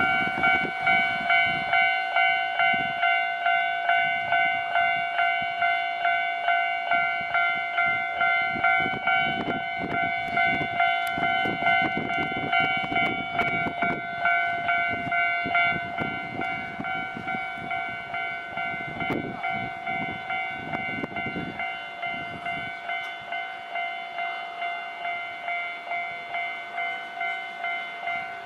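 Japanese railway level-crossing warning bell dinging in a steady fast rhythm. A train rumbles through in the middle stretch, with wheel clicks over the rail joints, and then the bell rings on by itself.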